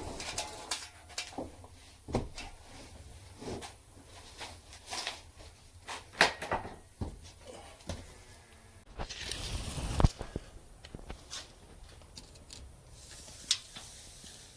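Sheets of OSB board knocking and clattering against each other as one is dug out of a stack, with a scraping slide that ends in a heavy thump about ten seconds in.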